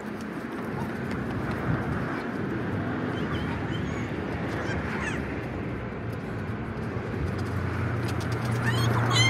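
Gulls calling a few times, with a louder cluster of calls near the end, over a steady outdoor rush; a low hum comes in near the end.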